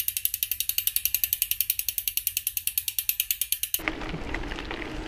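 Bicycle freehub ratchet clicking steadily, about ten even clicks a second, like a rear wheel freewheeling. It stops abruptly a little under four seconds in and gives way to a steady rushing noise of riding outdoors.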